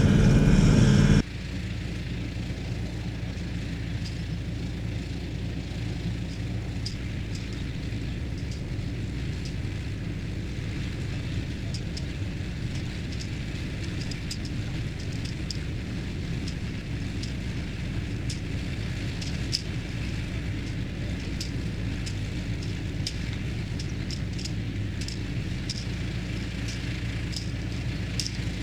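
A vehicle engine running steadily with a low rumble, with faint scattered clicks over it.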